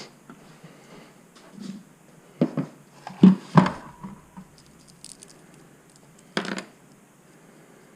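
Scattered knocks and clunks of parts being handled and fitted in a car's engine bay as the ECU-relocation battery box is mounted: two about two and a half seconds in, a louder cluster a little past three seconds with a short ring, and one more near six and a half seconds.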